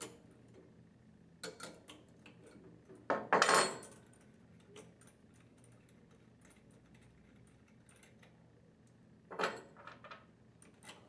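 Scattered metal clinks and taps of a wrench and nuts being worked and set down on a wooden workbench while the packing gland is taken off an internal gear pump's shaft. The loudest cluster comes a little over three seconds in, another near the end.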